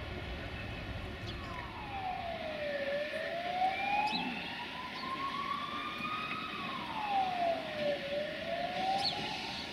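An emergency vehicle's siren wailing: its pitch falls quickly and then climbs slowly, twice over, with a second siren tone higher up. A steady low rumble runs underneath, with a few faint short high squeaks.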